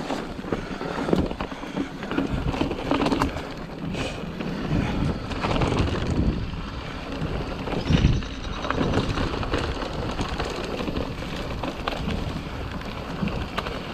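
Orbea Rallon full-suspension mountain bike riding over a rutted dirt track: tyre rumble and rattling from the bike, with irregular knocks as it hits bumps, and wind on the microphone.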